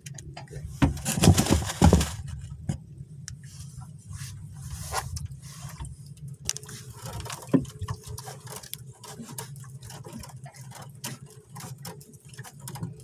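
Close handling noise as a caught fish and a handline are worked by hand near the microphone: a loud scraping rustle about a second in, then scattered clicks and small knocks, over a low steady hum.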